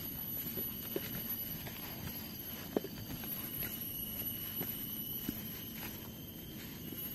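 Footsteps walking along a forest trail: uneven steps with small knocks about once a second, over a faint steady high-pitched tone.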